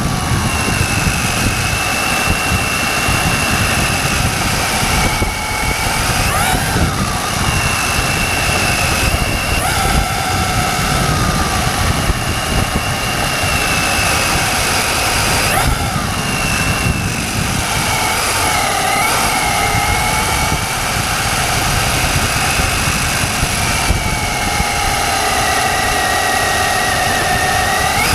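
Hobao Hyper ST RC truggy's motor whining continuously, its pitch holding for a few seconds and then dipping and rising again as the throttle is eased and opened, over a low rumble.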